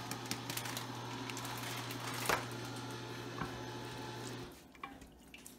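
A spatula stirring and scraping through soft broccoli in an enamel pot, with light knocks against the pot (the sharpest about two seconds in). Under it runs a steady low hum that stops about four and a half seconds in.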